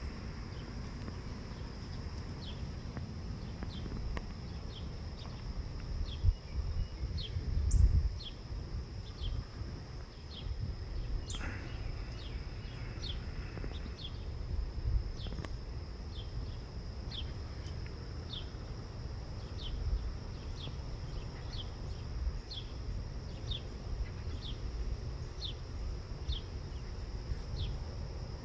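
Outdoor insect chorus: a steady high trill with a short chirp repeated about once a second. Under it is a low rumble on the microphone, with a few louder bumps about a quarter of the way in.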